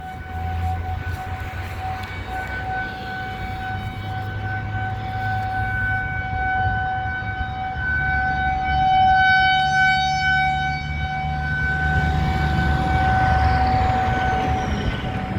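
Federal Signal 2001-130 rotating electromechanical outdoor warning siren sounding a steady single tone during its weekly test. It swells and fades in loudness as the head turns, and dies away near the end.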